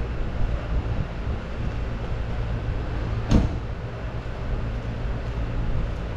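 A 2011 Mercedes-Benz E300's 3.0-litre V6 petrol engine idling steadily, with the driver's door shut in a single solid thump about three seconds in.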